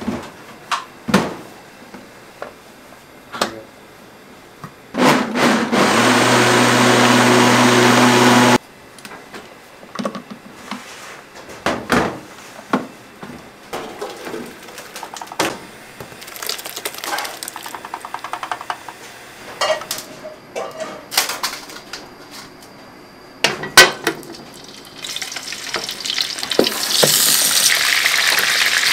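Restaurant kitchen prep: dishes and utensils knocking and clattering, and an electric kitchen machine running loudly with a low hum for about three and a half seconds before cutting off. Near the end, frying oil starts to hiss and sizzle.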